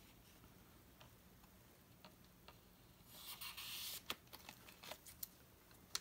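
Near silence, then about three seconds in a short sliding rustle as a knife is pushed into a stiff leather sheath, followed by a few light clicks of handling.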